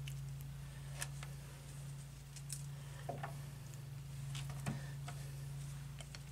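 Faint handling sounds and a few light taps as baked cheese 'noodle' strips are picked off a baking sheet and laid into a glass baking dish, over a steady low hum.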